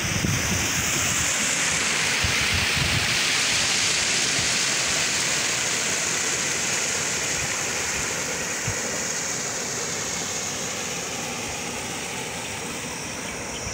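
Steady rushing outdoor noise, strongest in the high range, with low bumps in the first few seconds.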